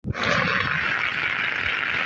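Steady rainfall, an even hiss that starts at once and holds level.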